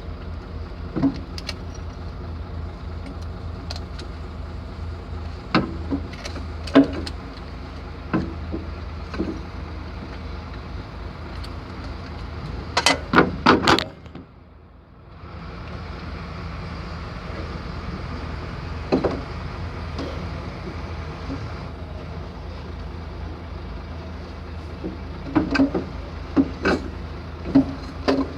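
Diesel engine of a Volvo EC210BLC excavator running steadily, with scattered metallic clinks and knocks of tools over it. There is a brief burst of knocks about halfway through, followed by a short drop in the sound.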